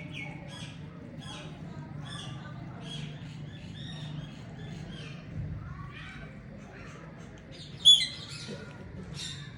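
Birds chirping: many short, high chirps in quick succession over a steady low hum, with one loud, sharp squawk about eight seconds in.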